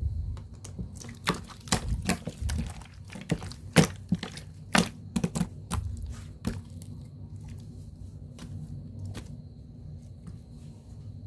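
Slime being pressed, stretched and folded by hand, giving a run of sharp popping clicks and crackles, thick for the first six or seven seconds and then thinning to a few quiet rustles.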